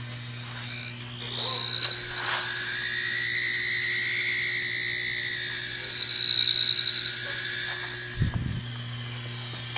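A high electronic whine from a handheld needle-dial field meter. It comes in about a second in, wavers slowly in pitch with a dip about six seconds in, and cuts off suddenly about eight seconds in, over a steady low hum.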